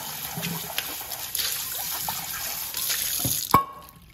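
Kitchen faucet water splashing into a stainless steel bowl as it is rinsed by hand. About three and a half seconds in, the metal bowl is set down with a sharp clank that rings briefly, and the splashing stops.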